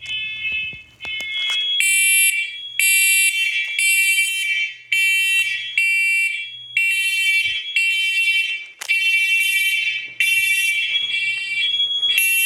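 Several interconnected First Alert hardwired smoke alarms sounding together after a test with real smoke, their shrill piezo horns beeping about once a second, overlapping out of step with one another.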